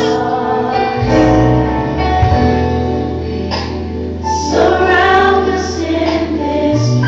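Recorded gospel song playing: singing voices holding long notes over a steady deep bass that comes in about a second in.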